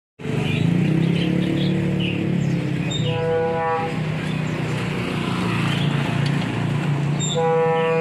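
Street traffic with a steady engine hum, and a vehicle horn honking twice, each honk just under a second long and steady in pitch, about three seconds in and again near the end.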